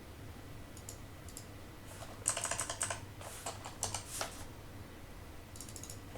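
Computer keyboard being typed on in several short bursts of keystrokes with pauses between them.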